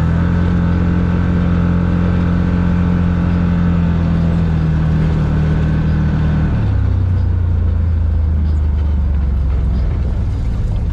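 ATV engine running steadily while riding, its note dropping a little about six and a half seconds in.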